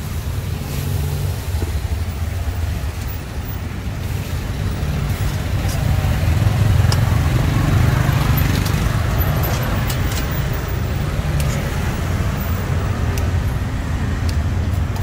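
Street traffic: motor vehicle engines running close by as a low rumble that swells about six seconds in. Scattered light clicks sound over it.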